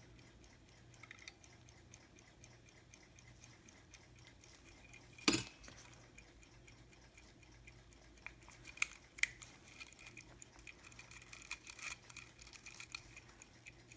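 Ingraham Biltmore pin-lever pocket watch movement ticking steadily and faintly. A sharp click about five seconds in and a couple of fainter clicks a few seconds later.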